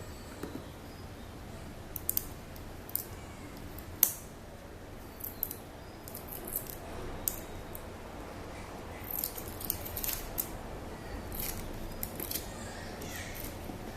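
Phone retail packaging being opened and handled: scattered sharp clicks and snips, the sharpest about four seconds in, with a busier stretch of rustling and scraping about nine to ten seconds in.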